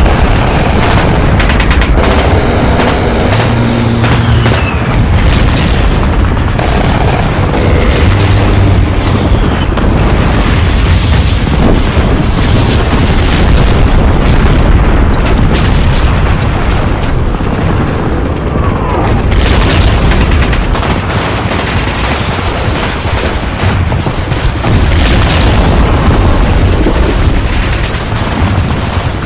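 Layered modern-warfare ambience sound effect: continual heavy booms of explosions and artillery mixed with bursts of machine-gun and rifle fire, loud and dense with no let-up.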